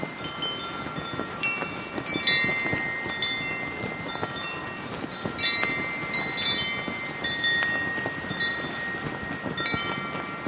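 Brass wind chimes ringing irregularly as gusts knock the tubes, several struck together in clusters a few times, over a steady rush of heavy wind and a flag flapping.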